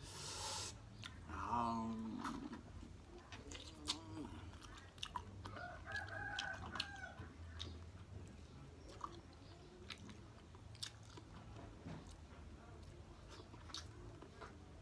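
Close-miked chewing and biting of boiled chicken, with wet clicks and crunches scattered throughout. Two brief pitched calls break in, a falling one about a second and a half in and a steadier, longer one around six seconds.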